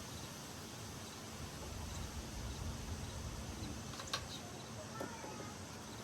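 Faint steady hum of honeybees around an open hive, under a low outdoor rumble, with a sharp click about four seconds in.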